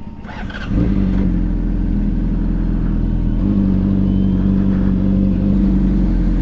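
Honda CBR600RR's inline-four engine pulling away from idle, getting louder about a second in, then running steadily at low revs as the bike rolls slowly forward, its note shifting slightly about halfway through.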